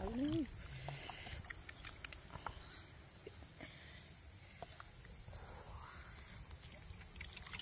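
Wooden pestle stirring and knocking in a wooden mortar of wet chili sauce, a few scattered light knocks over a steady high hiss. A short rising voice-like call right at the start is the loudest sound.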